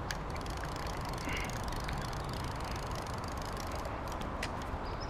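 Baitcasting reel cranked quickly, a fast fine ticking over a steady rushing background, as slack line is taken up after a catfish has run toward the bank with the bait.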